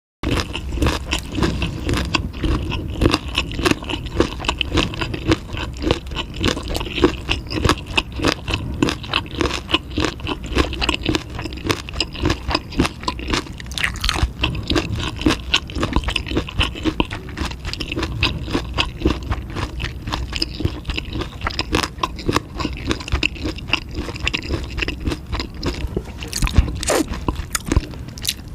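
Chewing food close to the microphone: a dense, continuous run of wet, crunchy mouth clicks and smacks that starts suddenly just after the beginning.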